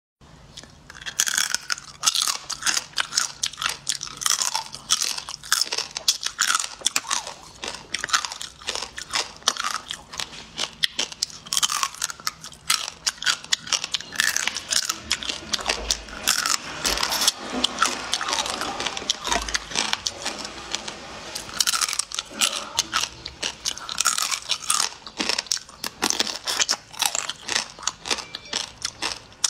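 Eating shell-on raw seafood in a spicy marinade: repeated crunches and cracks of shell being bitten, mixed with wet chewing, on and off throughout.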